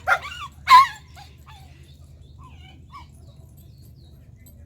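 A dog whimpering and yipping in a few short high calls in the first second, the loudest just under a second in, then only faint whines over a low steady rumble.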